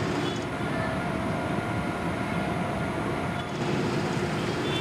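Steady rumble of vehicle noise, with a brighter hiss swelling in from about half a second in until about three and a half seconds.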